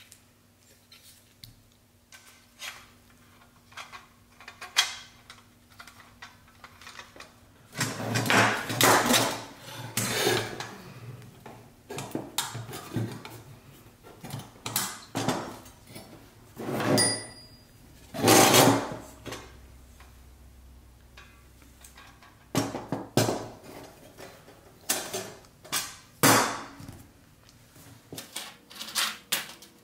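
Thin sheet-metal parts being bent, handled and slid across a workbench with gloved hands and a hand tool: a string of scrapes, clicks and light rattles, coming in several louder noisy stretches.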